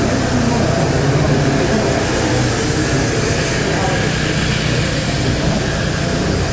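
Indistinct chatter of many people over a steady low hum.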